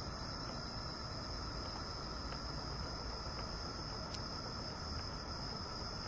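Insects, crickets or similar, chirring steadily in a high-pitched, unbroken ring over a low background hiss.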